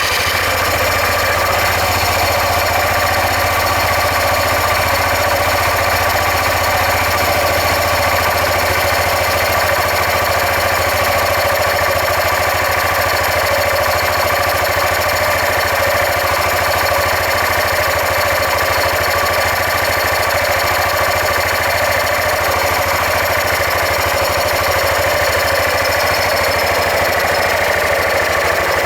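Suzuki Skywave 400 (CK44A) scooter running steadily just after starting, with a continuous fast rattling clatter coming from its CVT drive system: an abnormal noise that points to a fault in the drive.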